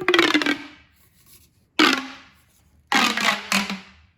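Plastic pull-and-push fidget toy being sounded by pulling it out and pushing it back in: three loud noisy bursts, the first right at the start, then about two and three seconds in.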